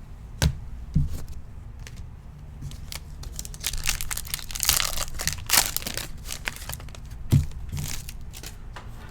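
A 2020 Prizm Football card pack's wrapper being torn open and crinkled, loudest in a crackling stretch midway, with a few sharp knocks of the cards and pack being handled.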